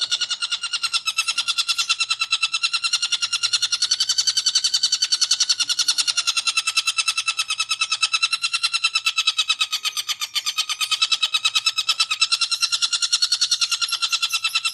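Long-tailed shrike (cendet) giving its continuous 'ngekek' chatter: a fast, even stream of harsh notes at a steady pitch, without a pause.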